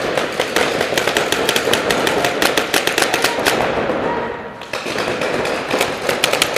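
Paintball markers firing rapid strings of shots, many pops a second, echoing in a large indoor hall; the firing eases briefly about four seconds in, then picks up again.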